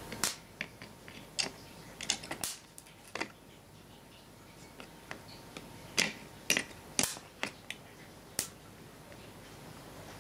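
Irregular sharp snapping cracks, about a dozen, grouped near the start and again past the middle: sparks arcing as a charged capacitor bank is discharged into circuit board components and tracks.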